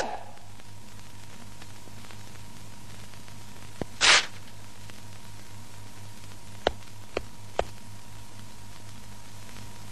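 Steady hum and hiss of an old film soundtrack. About four seconds in there is a short loud paper rip as a calendar page is torn off. Three light taps follow a few seconds later.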